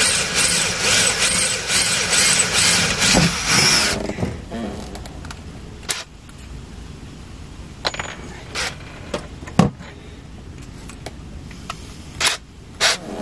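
Cordless drill boring into a stainless steel bracket with a bit dull enough that it needs sharpening. The drilling stops abruptly about four seconds in and is followed by a few sharp knocks and clicks.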